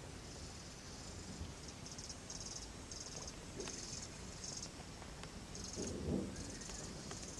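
Insects buzzing high-pitched in short, uneven pulses, with a louder low rustle about six seconds in.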